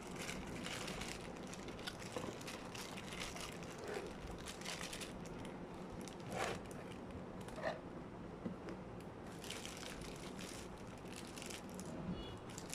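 Product packaging being handled and unwrapped, crinkling and rustling in irregular crackles, with a couple of louder ones past the middle.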